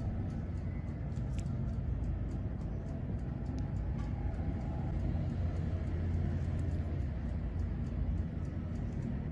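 Steady low droning background noise with faint scattered ticks.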